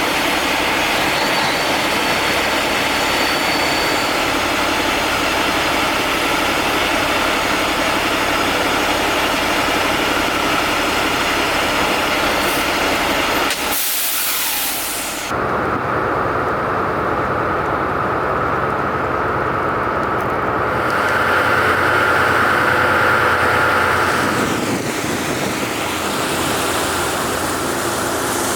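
Steady engine and rumbling noise from a heavy vehicle running. The sound changes abruptly about halfway through, and a louder stretch comes a few seconds later.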